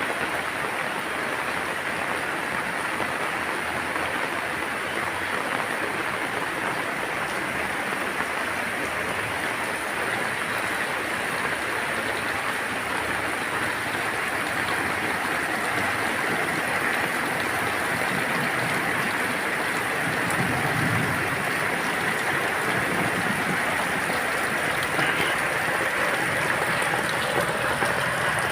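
Steady rain falling on garden plants: an even, unbroken rush with no pauses.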